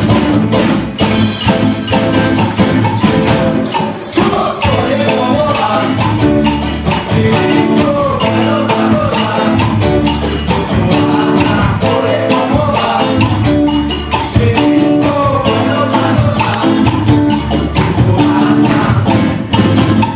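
Live band playing Latin rock: a lead electric guitar melody over electric bass, drums and hand percussion, including agogo bells. The melody comes in about four seconds in.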